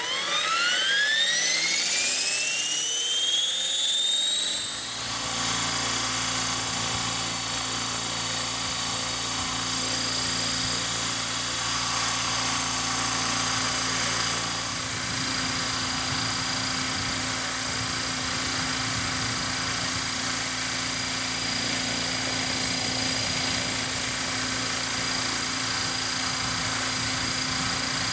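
T-Rex 600 RC model helicopter spooling up: a rising whine over the first four or five seconds that then levels off into a steady whine from its drivetrain and rotor blades as it hovers close to the ground.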